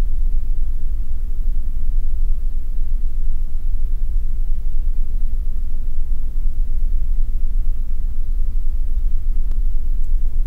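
Steady low rumble with no changes, strongest in the deep bass.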